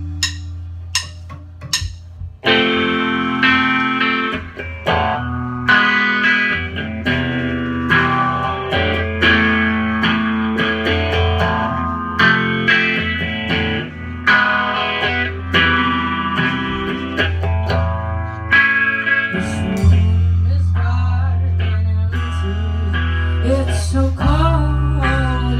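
Rock band playing in a small rehearsal room: a few sharp clicks, then electric guitar, electric bass and drum kit come in together about two and a half seconds in and play on steadily, with singing starting near the end.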